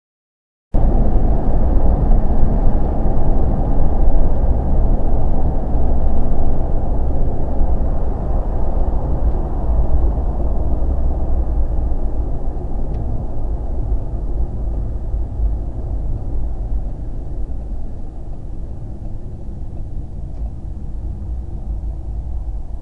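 A car's low road and engine rumble, starting abruptly about a second in and slowly fading as the car slows into a parking lot.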